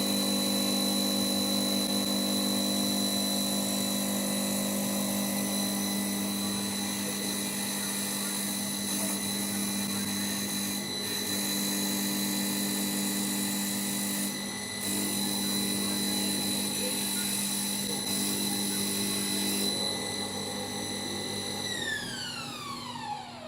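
CNC wood-turning lathe running with a steady high-pitched motor whine over a noisy machine hiss. Near the end the whine falls steadily in pitch as the spindle winds down to a stop.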